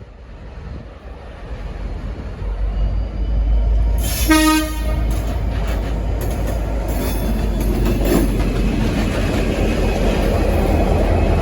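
V/Line N class diesel locomotive N458 rumbling louder as it gets under way, with one short blast on its Leslie RS5T horn about four seconds in. The locomotive's engine and rail noise then stay loud and steady.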